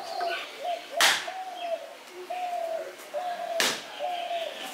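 Two sharp cracks about two and a half seconds apart as a bael fruit (stone apple) is struck against hard ground to split its woody shell. A bird calls over and over in the background, with short, slightly falling notes.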